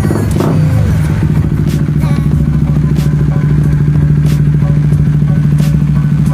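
Honda CBR150R's single-cylinder engine idling steadily through an aftermarket Akrapovic M1-style muffler, with a fast, even exhaust pulse. Right at the start the revs are still settling down from a blip.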